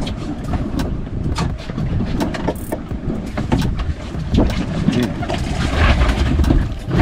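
Wind buffeting the microphone aboard a small boat, with scattered knocks and clicks. Near the end a halibut thrashes and splashes at the surface as it is gaffed beside the hull.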